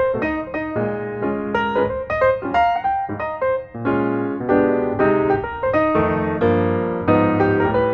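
Background music played on piano or electric piano: a quick run of notes over a steady bass line.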